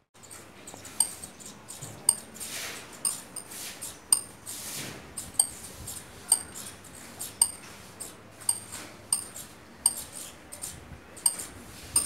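Saffron finches calling at the nest: short, sharp, high chirps about once a second, with two longer hissing sounds in the first half.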